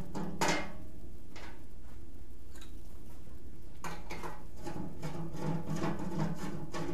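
Hands and tools working on a combat robot's frame on a workbench: one sharp knock about half a second in, a few light clicks, then a quicker run of clicks and rattles in the second half, over a steady low hum.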